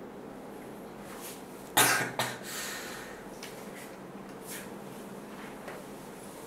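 A person coughing: one loud, sharp cough about two seconds in, a smaller one right after, then only low room noise with a few faint clicks.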